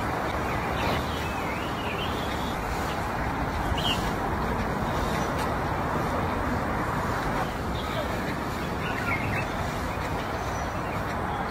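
Steady outdoor background noise, a low even rumble like distant traffic and murmuring voices, with a few short bird chirps: about a second in, near four seconds and around nine seconds.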